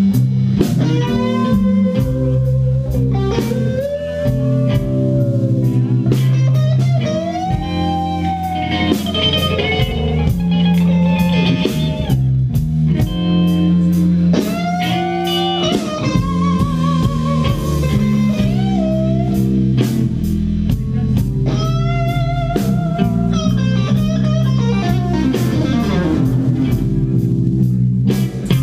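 Live blues-rock band: an electric guitar solo full of bent notes and vibrato over drums.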